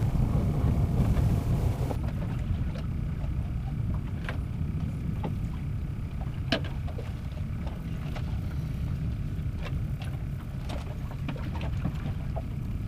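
Wind rumbling on the microphone on an open boat, with scattered small clicks and taps.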